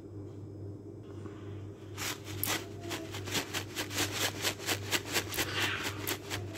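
Red chili flakes shaken from a spice shaker over a bowl of flour: a quick rattle of about five shakes a second that starts about two seconds in and stops near the end, over a steady low hum.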